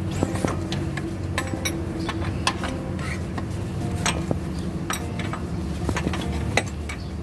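Irregular metallic clicks and clinks from a hand tool on the crankshaft pulley bolt as a Hyundai Getz 1.4 engine is turned over by hand to set its timing, over a steady low hum. The engine is stiff to turn because there is water inside it.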